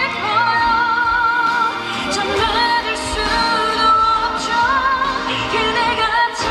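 A woman singing live into a handheld microphone over the song's accompaniment, holding long notes with vibrato.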